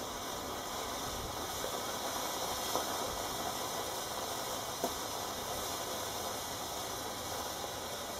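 Uncooked potassium nitrate and sugar (candy) rocket motor in its slow-burning stage, hissing steadily as it pours out white smoke. Two short pops come about three and five seconds in.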